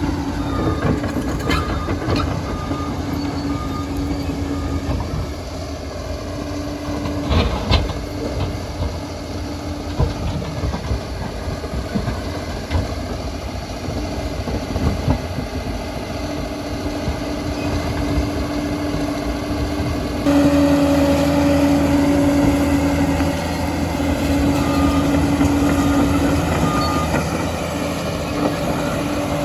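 Liebherr PR 746 crawler dozer working: its diesel engine runs steadily under load while the steel tracks clatter, with a few sharp clanks. The sound steps suddenly louder about twenty seconds in.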